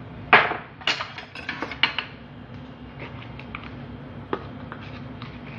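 Metal spoon knocking and clinking against a mixing bowl while ingredients are scooped in and stirred. One sharp knock comes about a third of a second in, then a quick run of clinks over the next second or so, then a few lighter taps.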